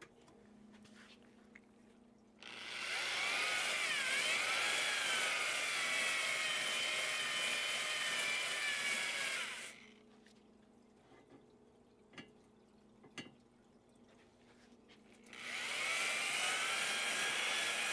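Cordless drill spinning a brush inside a two-stroke outboard's cylinder bore to scrub out grit left from plateau honing. Two runs of a steady whine: the first about seven seconds long, dipping briefly in pitch as the brush bites, and the second starting near the end.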